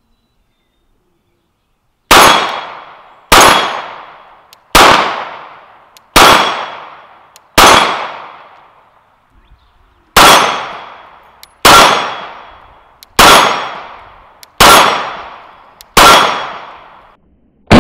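Ten slow, single 9mm pistol shots from a Glock 19 Gen 5, fired about one and a half seconds apart, with a slightly longer pause after the fifth. Each shot is a sharp crack with a ringing tail lasting about a second.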